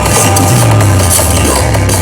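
Very loud electronic dance music with heavy, shifting bass notes and drums, played through a large outdoor sound system.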